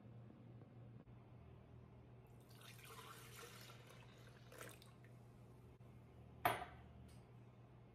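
Milk poured from a glass measuring jug into a glass blender jar, splashing for about a second and a half. Near the end, one sharp glass clink.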